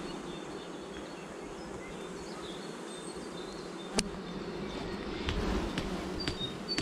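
Honeybees buzzing in a steady hum over an opened hive during a colony inspection. A single sharp knock comes about four seconds in, and there is brief handling noise shortly after.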